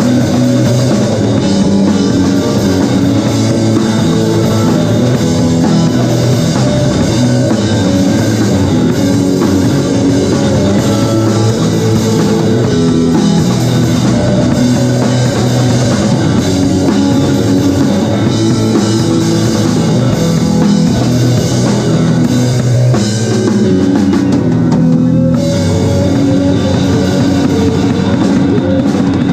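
Live rock band playing, led by a drum kit with electric guitars.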